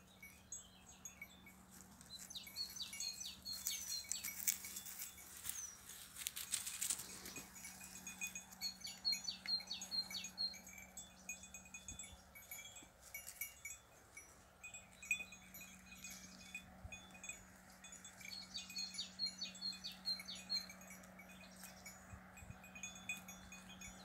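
Small bells on grazing goats tinkling irregularly as the animals move, in bursts of quick ringing notes with quieter gaps between.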